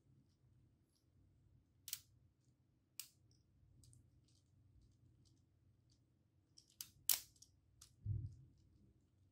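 Plastic LEGO Technic parts clicking as a hand crank turns the small mechanism: a few scattered sharp clicks, a louder cluster about seven seconds in, and a dull low thump just after.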